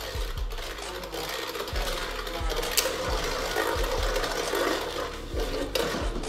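Two Beyblade Burst spinning tops spinning and clashing in a plastic stadium: a steady whirring rasp, with a few sharp clicks as they hit each other.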